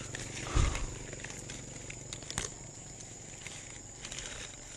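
Handling and rustling noise up in a tree as the fruit is reached for. There is a dull thump about half a second in and a light click near the middle, over a steady high-pitched hiss.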